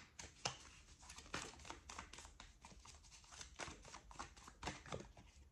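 Faint, irregular clicks and rustles of a tarot deck being shuffled and handled by hand.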